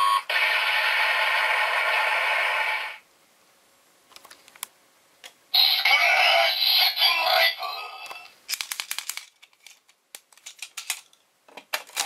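Electronic sound effects from Kamen Rider Build DX toys: the Build Driver belt plays a loud steady electronic tune that cuts off after about three seconds. After a few plastic clicks, a toy weapon sounds a burst of electronic music and synthesized voice for about two seconds, followed by a run of sharp plastic clicks as a full bottle is fitted into it.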